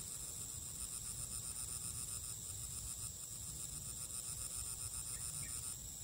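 Steady chorus of insects in the vegetation, several high-pitched buzzing and trilling layers, one of the highest stopping shortly before the end, over a low rumble.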